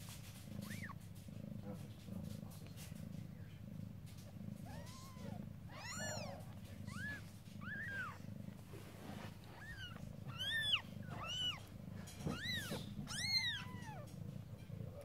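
Newborn kittens mewing: a string of short, high-pitched squeaky mews, each rising and falling in pitch, starting about five seconds in and coming faster toward the end, over a low steady hum.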